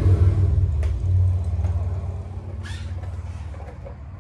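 A low, steady mechanical hum that fades away over the first two to three seconds, with a few faint clicks.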